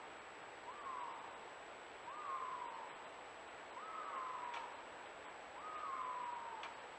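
Distant bobcat calling for a mate: four wailing calls about a second and a half apart, each a quick rise in pitch and then a long falling glide.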